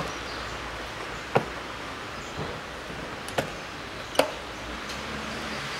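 Plastic push clips snapping into a car's plastic wheel-arch liner as they are pressed home by hand: four sharp clicks at uneven gaps.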